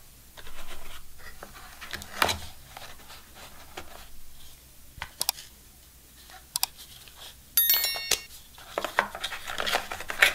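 Plastic packaging being handled: a travel charger pulled out of a phone box's moulded plastic tray, with scattered clicks, taps and scrapes of hard plastic. A brief electronic chime sounds a little under 8 seconds in.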